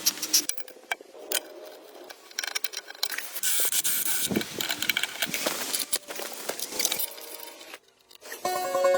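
Scraping and rubbing sounds with scattered sharp knocks, typical of hand work on wood. Plucked-string music comes in near the end, after a brief pause.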